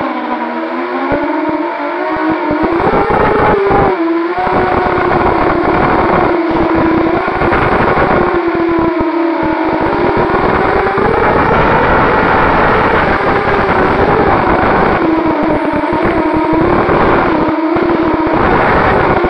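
Brushless motors and propellers of a 250-size FPV racing quadcopter whining steadily, the pitch rising and falling as the throttle changes, recorded loud by the quad's own onboard camera.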